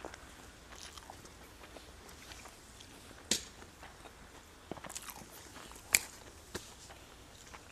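A person chewing a mouthful of triangle kimbap, with small wet mouth clicks and lip smacks, and two sharper smacks about three and six seconds in.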